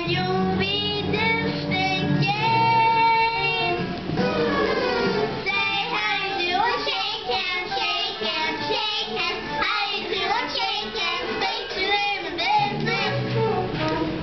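Several young children singing a song together.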